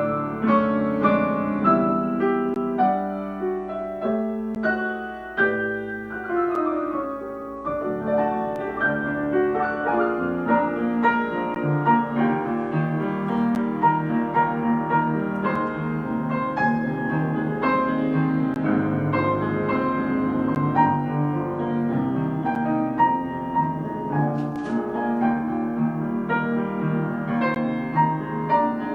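Instrumental piano music, a classical-style piece of steadily moving notes.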